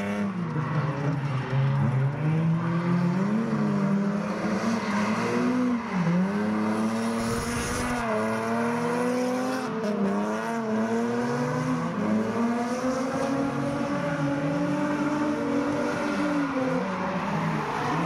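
Drift car engines revving up and down over and over as the cars slide sideways around the course, with tyre squeal underneath.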